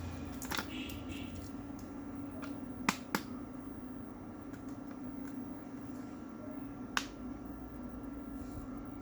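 About four sharp, separate clicks, the first two close together and one near the end, from small hard plastic parts being handled, over a steady low hum.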